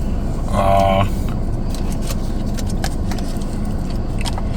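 Steady low rumble of a car cabin, with a short hummed "hmm" about half a second in and scattered small clicks and crackles from eating and handling fried-chicken takeout.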